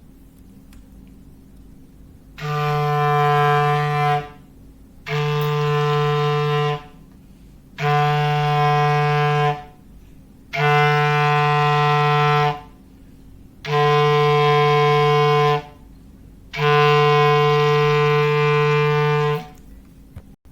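Foghorn sound effect: six long, steady blasts at the same low pitch, each about two seconds, with short gaps between them; the last blast is the longest.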